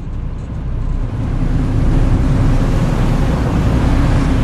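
Boat engine running, with wind and water noise. It fades up over the first two seconds, then holds steady.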